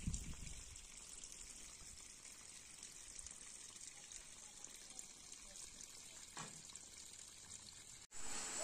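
Faint steady hiss of background noise, cutting out abruptly near the end before a louder hiss resumes.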